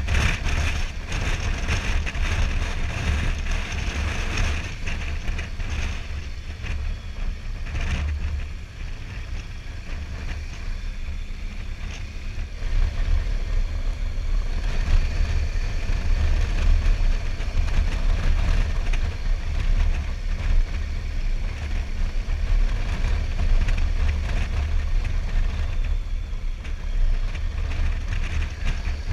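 Motorcycle riding heard from a helmet-mounted camera: wind buffeting the microphone with the bike's engine running underneath, steady throughout and a little louder from about halfway through.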